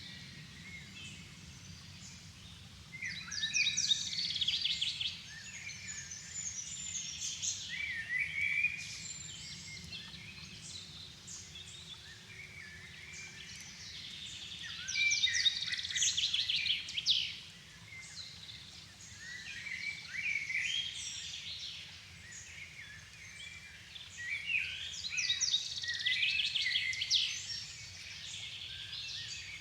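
Dusk chorus of several songbirds, with phrases of rapid, high notes coming every few seconds over a steady low background rumble.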